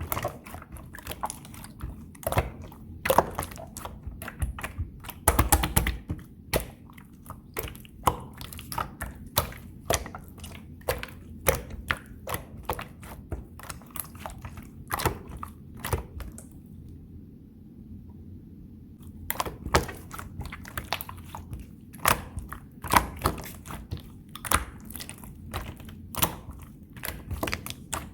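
Slime being mixed and kneaded by hand, giving off a dense, irregular run of sticky clicks and pops. The clicks stop for a couple of seconds a little past the middle, then resume.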